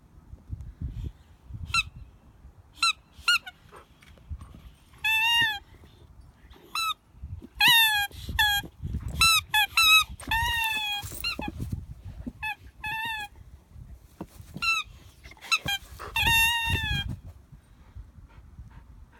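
Rubber squeaky toy squeaking again and again as a dog chomps on it. Some squeaks are short and some are long and wavering, over the low rustle of chewing, and the squeaking stops near the end.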